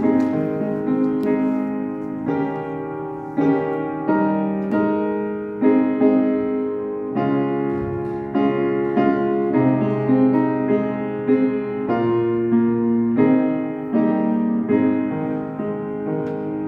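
Solo piano playing a slow piece in sustained chords, a new chord or note struck about every second.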